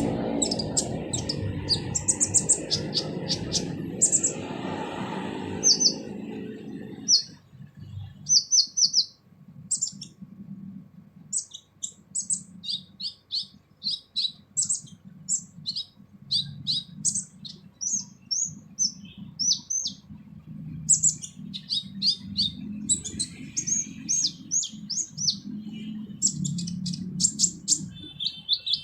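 Sunbird (kolibri ninja) singing a harsh, rough song of quick high-pitched chirps and short trilled phrases in irregular bursts. A low hum runs underneath and fades out about seven seconds in.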